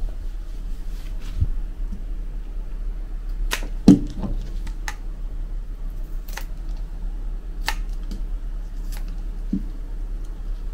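Scattered light clicks and knocks of objects being handled, with one louder thump about four seconds in, over a low steady hum.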